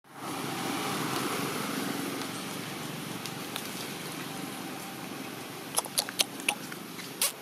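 Steady outdoor background noise, then about six seconds in a quick run of sharp crackles and snaps from a long-tailed macaque foraging on the ground among dry leaves and plants.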